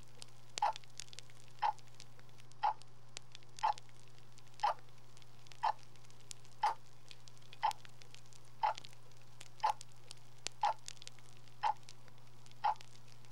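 A clock ticking steadily, once a second, over a low constant hum.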